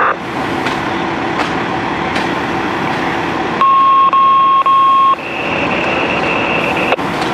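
Fire apparatus engines running steadily. About halfway through, a loud, steady electronic beep sounds once and lasts about a second and a half.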